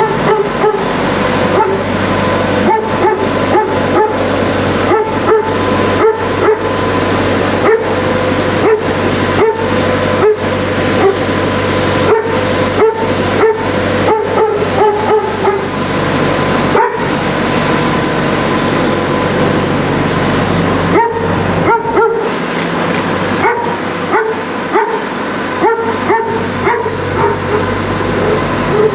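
A dog barking over and over in short yips, about one to two a second, with a lull past the middle. Under it runs the steady low hum of idling semi-truck diesel engines.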